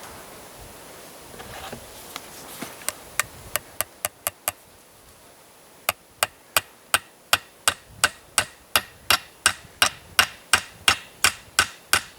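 Hammer blows: a few scattered strikes, then from about six seconds in a steady run of sharp strikes, about three a second.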